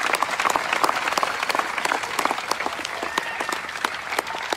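Large crowd applauding: dense, steady clapping that thins a little near the end.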